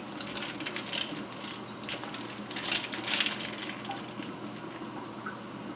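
Kitchen handling sounds: a few short clinks and scrapes over a faint steady hum.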